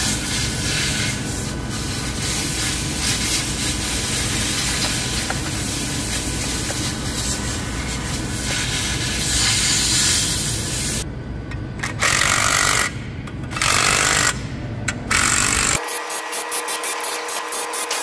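Continuous rattling power-tool noise that breaks into three short bursts with pauses about two-thirds of the way in, then gives way to music near the end.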